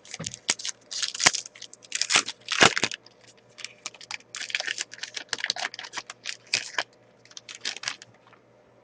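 Packs of trading cards being handled: a foil wrapper crinkling and tearing, and cards rustling and sliding against each other in quick, irregular bursts. The louder stretches come in the first three seconds, with short pauses before it stops near the end.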